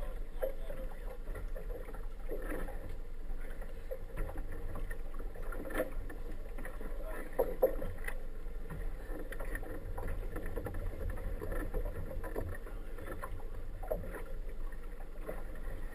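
Outboard motor of an inflatable boat running slowly, a steady low rumble, with water sloshing against the hull and a few light knocks.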